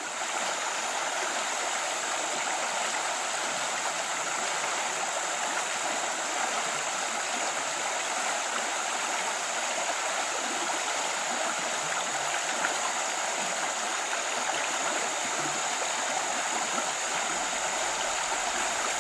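Steady rushing noise, even throughout, with a faint high whine held above it.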